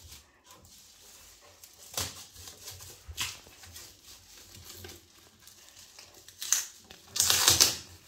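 Protective plastic film being peeled off a microwave oven's glass door, crackling in short bursts, with the loudest and longest crackle near the end.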